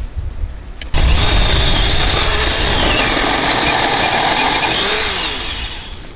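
Kobalt 40-volt cordless electric chainsaw starting instantly about a second in and cutting into a tree trunk, making the first cut of a felling notch. Its motor whine sags in the middle of the cut, rises again, then winds down near the end.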